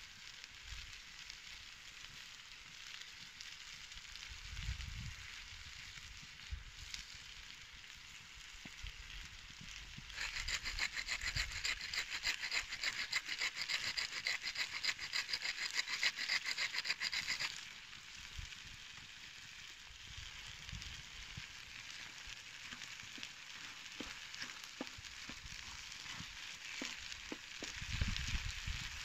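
Chicken pieces, tomatoes and peppers sizzling in a large steel pan over a wood fire, turning louder and more crackly for about seven seconds in the middle. Near the end a wooden spoon stirs the food around the pan.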